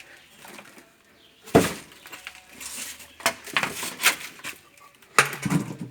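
Hard objects being shifted and knocked together, a scatter of clinks and knocks with one sharp knock about one and a half seconds in.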